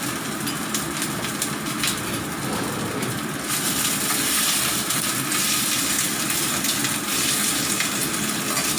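Vegetables sizzling as they stir-fry in oil in a frying pan, stirred with a spatula. The sizzling grows louder about three and a half seconds in.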